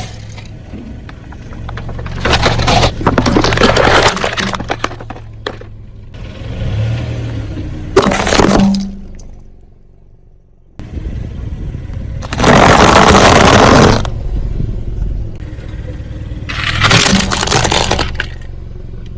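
A car tyre rolling over and crushing objects: four separate bursts of crunching and cracking, the third the loudest, over a low engine hum.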